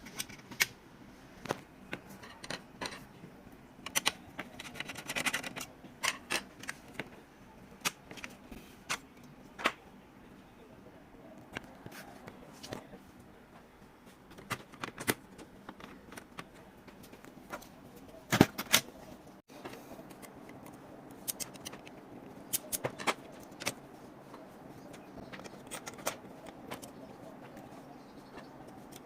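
Irregular small clicks, taps and scrapes of hands and tools working on a computer's plastic and metal parts, with a louder double knock about two-thirds of the way through.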